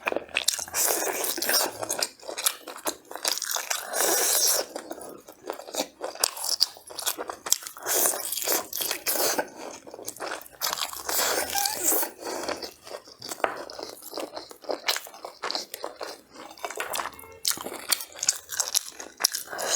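Close-miked eating of homemade braised pork ribs: a continuous, irregular run of wet biting, chewing and lip-smacking clicks.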